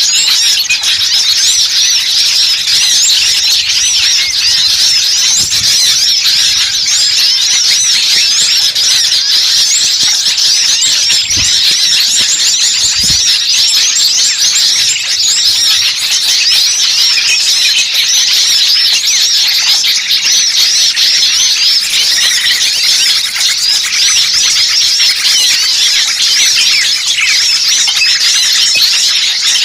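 Many small songbirds chattering and chirping at once in a dense, high, rapid twittering that never pauses. It is a bird-lure mix of noisy small-bird calls, played to draw wild birds in.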